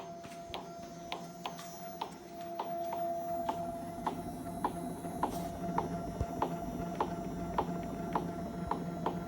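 Home-made CNC router running, a steady whine with a regular tick about twice a second.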